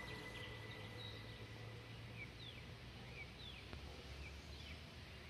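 Faint short high chirps of a small animal, each falling in pitch, repeating irregularly about twice a second over a low steady hum.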